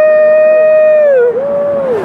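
A person's voice whooping a long, held "woooo" that swoops up at the start and drops off a little past a second in, followed by a shorter second "woo" at a slightly lower pitch.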